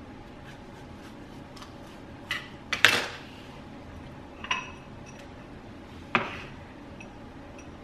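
A kitchen knife clicking and knocking against a wooden cutting board and a small ceramic bowl while mango cubes are cut out and pushed into the bowl: a handful of separate sharp knocks, the loudest about three seconds in, and a short ringing clink against the bowl about halfway through.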